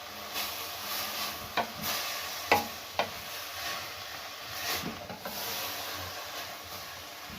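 A spoon stirring chopped leek, carrot and celery as they sizzle in butter in a pan, with a steady hiss and a few sharp knocks of the spoon against the pan around two to three seconds in.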